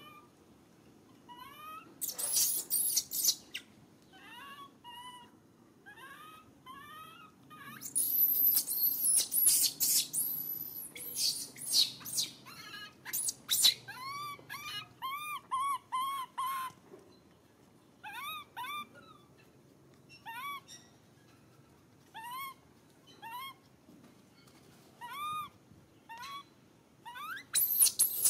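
Infant long-tailed macaque crying: a long string of short, arched coo calls, at times several a second, broken by loud high-pitched screams about two seconds in, for several seconds from about eight seconds, and again near the end.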